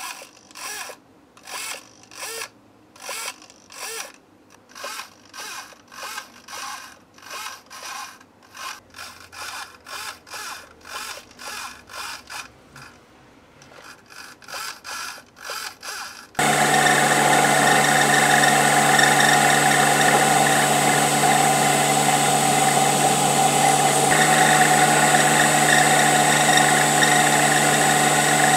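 A small radio-control servo buzzes in short bursts, about two a second, as it swings a model boat's brass rudder arm from side to side. About sixteen seconds in, this cuts suddenly to an Emco Unimat SL lathe running steadily and much louder as it turns brass bar stock.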